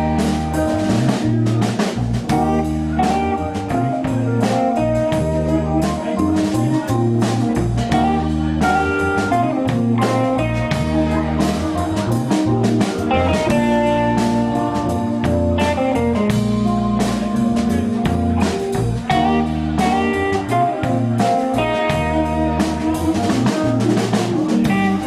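Rock band playing an instrumental break with no vocals: a guitar carries the melody over bass and a steady drum-kit beat.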